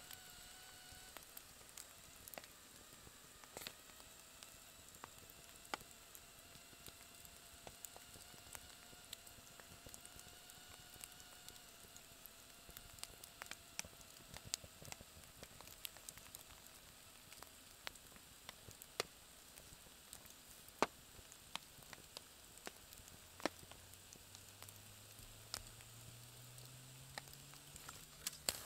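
Quiet crackle of a wood campfire: irregular sharp pops and snaps from burning logs over a soft hiss, with a thin whistling tone from the burning wood through much of the first two thirds. Near the end a faint low drone rises slowly in pitch.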